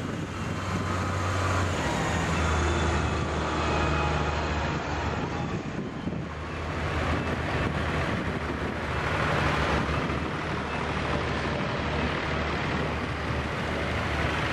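Farm tractor engines running steadily as a line of tractors, including a red Farmall and a John Deere, drives past one after another. The low engine drone swells and fades as each one goes by.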